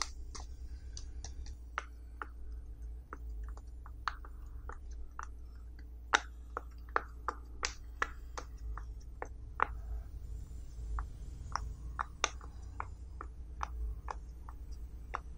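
Silicone pop-it fidget toy bubbles popping one at a time under fingertips: sharp, irregular pops, about two a second.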